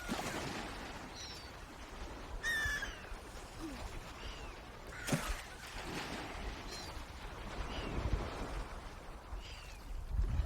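Swans calling: short, high call notes every second or so at irregular intervals, one louder and fuller about two and a half seconds in, over a low background rumble.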